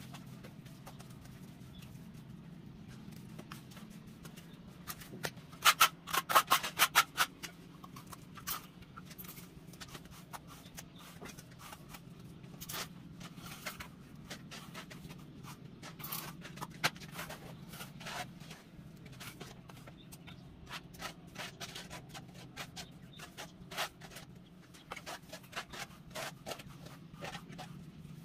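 A steel trowel scraping and tapping through wet cement mortar, spreading and combing the bed for floor tiles: a quick run of loud scrapes and knocks about six seconds in, then scattered lighter scrapes and taps. A steady low hum sits underneath.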